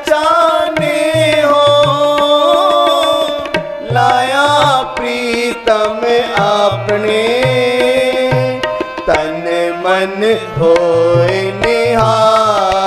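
Devotional kirtan music: harmonium and tabla playing, with a male voice singing a gliding melody over the harmonium's sustained chords. The tabla keeps a steady rhythm of low bass-drum strokes.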